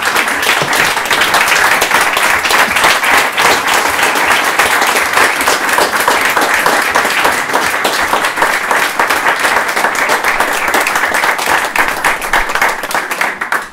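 Small audience clapping and applauding steadily after a poem, the applause dying away near the end.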